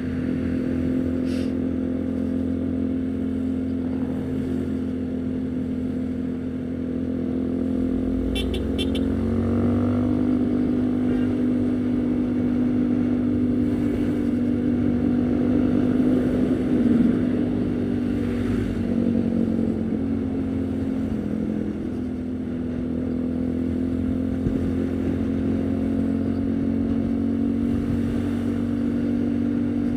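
Haojue NK150 single-cylinder motorcycle engine running at steady riding revs. The engine note steps up a little about ten seconds in, wavers and dips briefly about two-thirds of the way through, then holds steady again.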